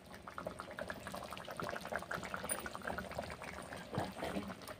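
Fish curry boiling in a metal kadai over a wood fire, bubbling with a dense run of quick small pops.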